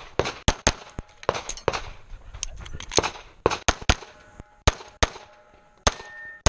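Semi-automatic pistol fired in rapid succession, about fifteen shots, several in quick pairs, with short gaps between groups as the shooter moves from target to target.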